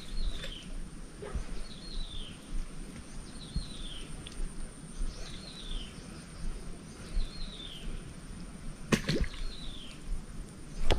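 A bird repeating a short, falling call about every second and a half, over low outdoor rumble and a steady thin high tone. A sharp knock sounds about nine seconds in.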